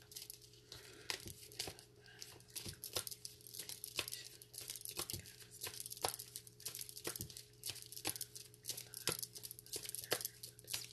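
A deck of oracle cards being shuffled by hand: quiet, irregular flicks and slaps of cards against each other, several a second, with a steady low hum underneath.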